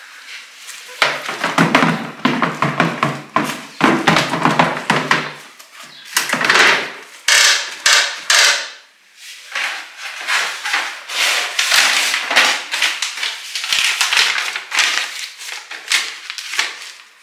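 Plastic bag rustling and crinkling as it is stretched over the rim of a Separett composting toilet's solids bucket and the bucket is set down inside the toilet, with a few knocks of plastic on plastic.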